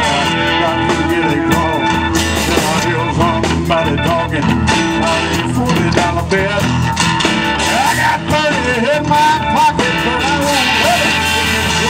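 Live blues-rock band playing: electric guitars, keyboard and drums, with a lead line bending up and down in pitch over a steady beat.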